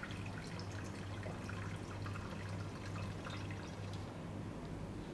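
Water squirted from a plastic wash bottle trickling faintly into a glass beaker of spore suspension to dilute it, over a steady low hum.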